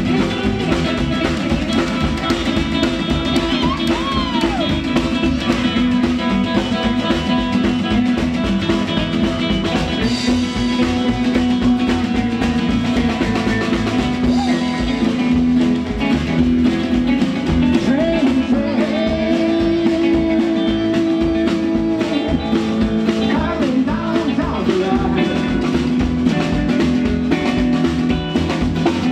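Live band playing rock and roll on upright bass, acoustic guitar, electric guitar and drum kit.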